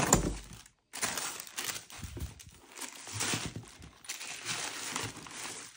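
Tissue paper crinkling and a cardboard shoebox rustling as leather combat boots are lifted out and handled, in irregular bursts. A soft thump at the very start is the loudest moment.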